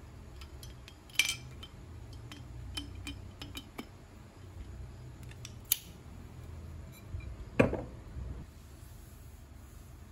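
Glassware being handled and set down on a desk: scattered light clinks and clicks, louder ones about a second in and near six seconds, then a heavier knock with a dull thud about seven and a half seconds in.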